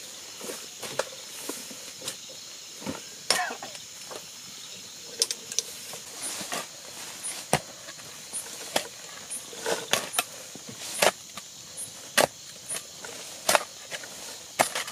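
Digging: a hand tool striking and biting into the ground in sharp, irregular strokes, roughly one or two a second, over a steady faint high-pitched chirring.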